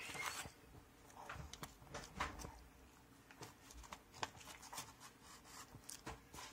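Faint, scattered crinkles and crackles of a crumpled aluminium foil burger wrapper being handled.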